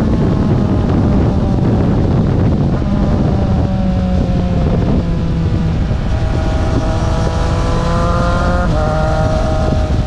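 Triumph Street Triple RS's 765 cc inline three-cylinder engine, through an aftermarket Spark exhaust, running under way as the bike is ridden. The engine note drifts and steps in pitch a couple of times as the revs change, over steady wind and road noise.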